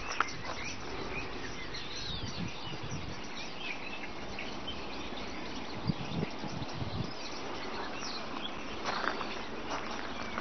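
Outdoor ambience: a steady background hiss with scattered short bird chirps and a few low thumps.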